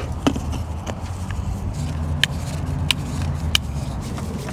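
A vehicle engine idling with a steady low hum, with sharp clicks and taps about every second over it.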